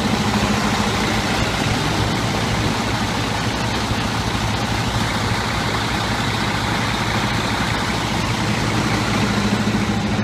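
Sterling heavy-duty tow truck's diesel engine idling steadily, a constant low hum, with city street traffic noise around it.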